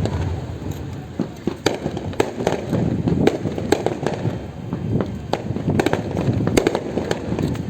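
Aerial fireworks bursting: an irregular run of sharp bangs and crackles, several a second, over a steady rumble.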